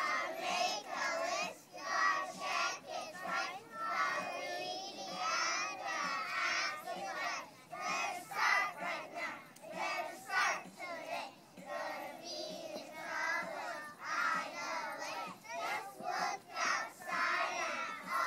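A chorus of young children chanting a Christmas rap together in a rhythmic unison chant.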